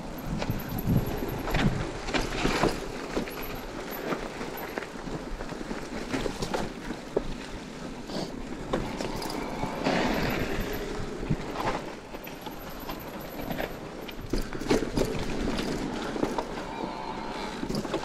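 E-mountain bike ridden along a forest trail: tyres rolling over dirt and fallen leaves, with frequent sharp knocks and rattles from the bike going over bumps.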